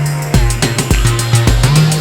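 Background music with a heavy electronic beat: a kick drum about twice a second over a deep bass line.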